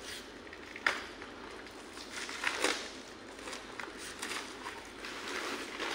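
Kraft paper and plastic packing sheets crinkling and rustling as a large paper-wrapped acrylic sign is handled, with a sharp snap about a second in and a louder crackle of paper a little after two seconds.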